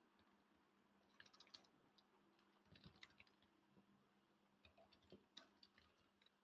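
Faint computer keyboard typing: three short runs of key clicks.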